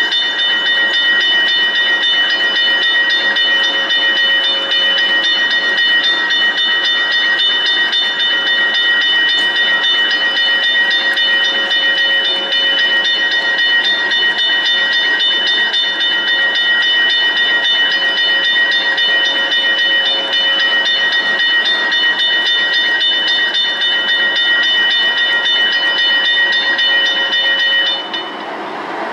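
Model railroad locomotive running on the layout: a steady hiss with constant high-pitched whining tones that cut off near the end.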